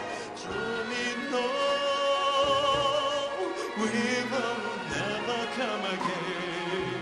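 A folk-instrument orchestra of tars, qanun and violins plays live, with sustained high melody notes wavering in vibrato above the accompaniment. The music is steady, with no break.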